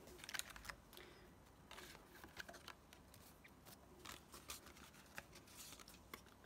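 Near silence with faint scattered rustles and light taps of cardstock as a folded paper card is handled, turned over and opened out.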